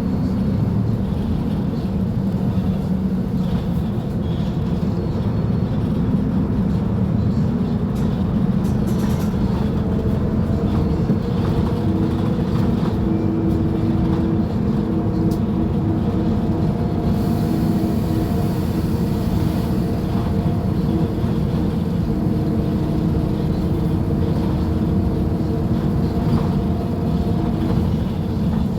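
Diesel engine of a Mercedes-Benz OF-1724L Bluetec 5 city bus running, a steady low drone with faint whining tones that come and go.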